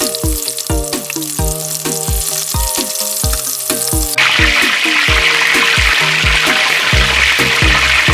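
Hot oil sizzling around a whole kasago (marbled rockfish) deep-frying in a pot. The sizzle grows much louder about four seconds in. Background music with a steady beat plays over it.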